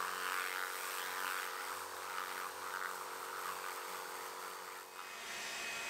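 Pressure washer running, a steady motor hum with the hiss of its water spray; the hum changes pitch about five seconds in.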